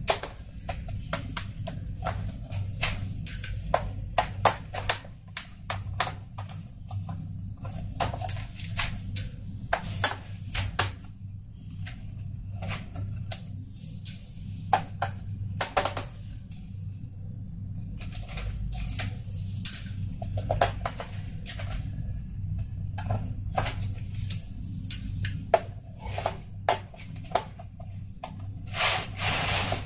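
Small sharp clicks, taps and scrapes of a screwdriver and fingertips working on the plastic underside case of a Razer Cyclosa membrane keyboard while its screws are taken out, coming irregularly with a few quick clusters, over a steady low hum.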